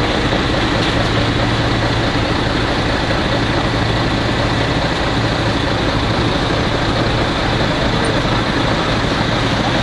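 Mercedes-Benz dump truck's diesel engine running steadily with a constant low hum as the truck moves slowly, mixed with steady tyre and road noise.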